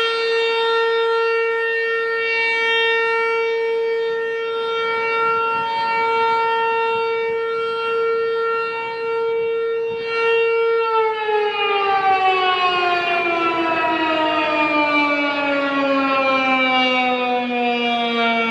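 ASC T-128 warning siren sounding a steady single tone at full speed, then winding down from about two-thirds of the way through, its pitch falling smoothly and steadily.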